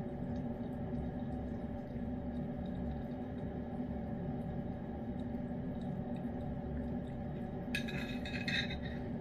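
Cat licking and eating food off a spoon with faint small clicks, over a steady room hum. About eight seconds in, two quick clinks and scrapes of a wooden spoon against the ceramic bowl as more food is scooped.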